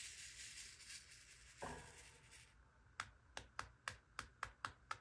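Faint rattle of round resin diamond-painting drills being shaken in a plastic tray. A soft knock comes partway through, then the rattle stops. A quick run of sharp light clicks follows, about four a second, as drills are tapped down onto the canvas.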